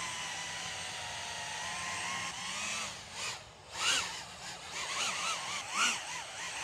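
Brushless motors and ducted propellers of a 5-inch FPV quadcopter whining steadily, then from about two and a half seconds in swinging up and down in pitch again and again as the throttle comes up. The swings are the quad oscillating under throttle, which the pilot puts down to the weight of a GoPro out on a rear boom.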